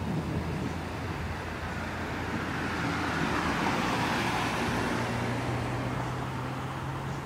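A small white sedan driving past: its tyre and road noise swells to a peak about four seconds in, then fades as it moves away.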